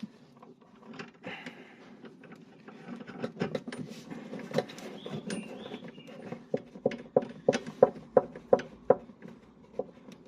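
Light metal clicks and knocks as a washer and nut are fitted onto a rear shock absorber's top mount, turning into a regular clicking of about two to three a second in the second half.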